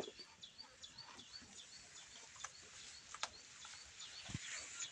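A small bird chirping over and over, short high chirps about three a second, with a few sharp clicks and a short low thud near the end.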